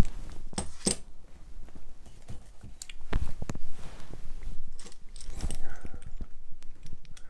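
Knives being handled on a workbench: scattered small clicks and knocks of metal blades and handles against each other and on the bench, with a rustle of handling about five seconds in.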